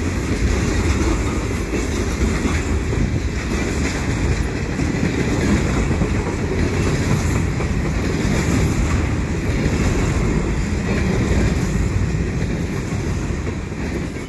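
Freight train cars, boxcars and covered hoppers, rolling past close by: a steady, loud noise of steel wheels running on the rails. The sound cuts off suddenly at the very end.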